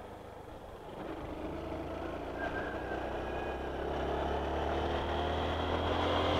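Honda Bros 160 motorcycle's single-cylinder engine pulling under acceleration, its pitch and loudness rising steadily from about a second in.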